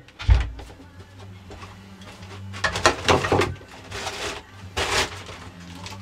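Belt sander motor humming steadily, with a knife blade pressed against the belt in short grinding passes, about three seconds and five seconds in, and a dull thump just after the start.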